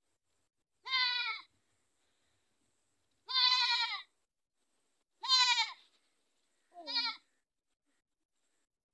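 Goats bleating: four separate wavering calls, each under a second long, about two seconds apart.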